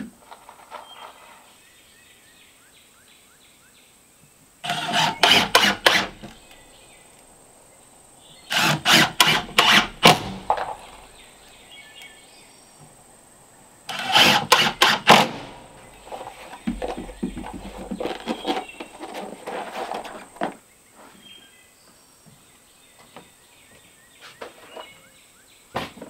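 Cordless drill driving screws into scrap-lumber boards: three loud, rattling bursts of a second and a half to two seconds each, followed by quieter handling of the wood and a few light knocks.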